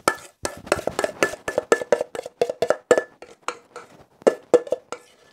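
A metal spoon repeatedly knocking and scraping against a metal pot while scooping out thick jam filling: a quick, irregular run of clinks, each with a short ring, that stops near the end.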